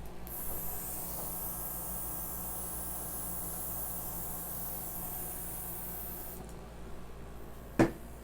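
Airbrush blowing a steady hiss of compressed air for about six seconds, then cutting off. A single sharp knock follows near the end.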